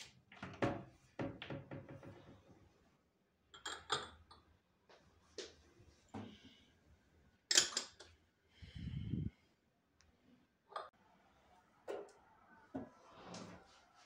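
Kitchen cabinet doors being opened and shut: a string of separate sharp knocks and clacks, with one duller, longer low thud about nine seconds in.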